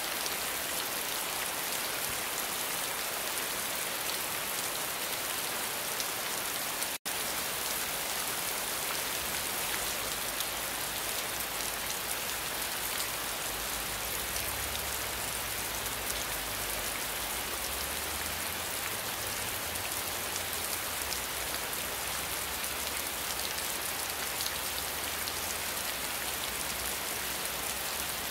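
Steady rain falling on wet pavement: a dense, even hiss of drops splashing. The sound cuts out for an instant about seven seconds in, and a faint low rumble runs underneath after that.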